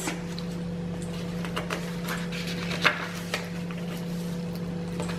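Paper pages and card inserts of a handmade junk journal being turned and handled: soft paper rustles and a few light clicks, the sharpest about three seconds in, over a steady low background hum.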